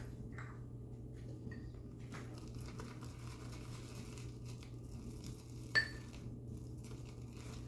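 West Coast Shaving Lithe safety razor scraping through lathered stubble in faint, short strokes, with one sharp clink about six seconds in.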